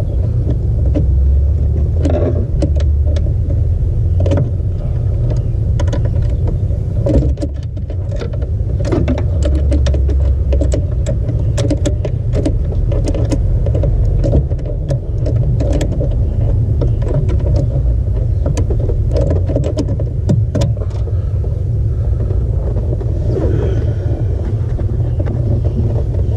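Small metal clicks and taps of a clevis pin and the master cylinder pushrod being fitted to the clutch pedal, scattered irregularly over a loud, steady low rumble.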